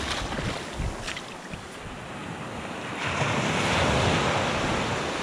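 Shallow surf washing in over a sandy beach, with a wave swelling up about three seconds in, and wind buffeting the microphone.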